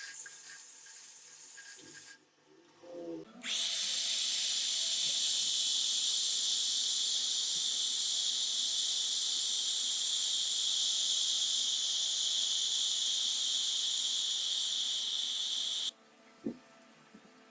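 A loud, steady hiss that starts suddenly about three and a half seconds in and cuts off suddenly near the end, after a shorter hiss with a few clicks at the start.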